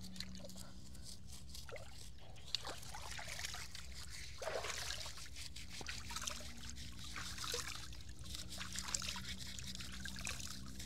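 Water trickling and dribbling softly as one person scrubs another's wet hair over a plastic basin, with small scattered drips and splashes.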